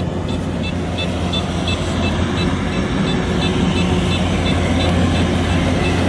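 Kubota DC-105X combine harvester running steadily with a deep engine hum. Over it is a light, high ticking that repeats about three times a second.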